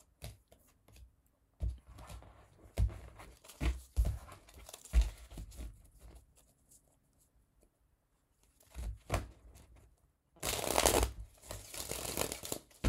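A One World Tarot deck being gathered from its piles and knocked square on the table, a string of sharp taps and rustles. Near the end the deck is riffle-shuffled: a dense flutter of cards lasting about two seconds, closed with a bridge.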